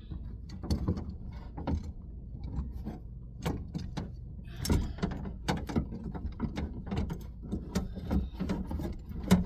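Irregular clicks, knocks and rattles of metal and plastic parts inside a car door, the window regulator and its clips being worked loose by hand.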